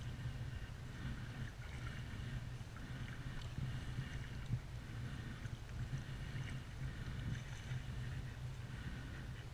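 Kayak paddle strokes dipping and splashing in the water, repeating about once a second, over a steady low rumble.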